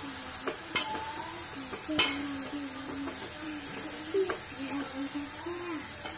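Metal ladle stirring grated carrots frying in a metal pot, with a steady sizzle and a few sharp clinks and scrapes of the ladle against the pot.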